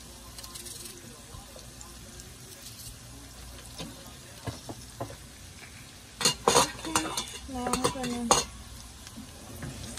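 Sliced onions in oil in a nonstick frying pan, a low steady sizzle. About six seconds in comes a loud cluster of knocks and scrapes against the pan, as in stirring.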